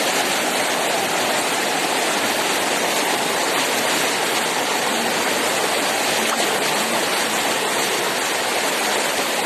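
Floodwater rushing in a steady, loud roar of moving water, unbroken throughout.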